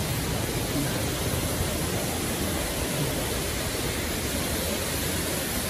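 Steady rushing noise of a waterfall cascading over rocks.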